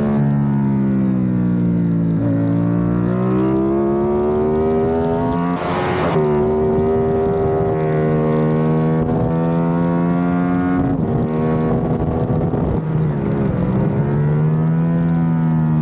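Yamaha YZF-R7's 689 cc parallel-twin engine at speed on track, heard from a camera mounted on the bike: the revs climb steadily for about five seconds, a brief rush of noise comes about six seconds in, then the pitch holds, dips twice and climbs again near the end.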